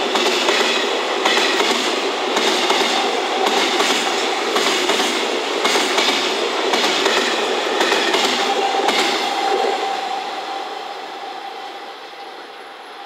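Container wagons of a freight train rolling past, wheels clattering over the rail joints about once a second. From about ten seconds in the clatter fades as the end of the train draws away, leaving a faint steady tone.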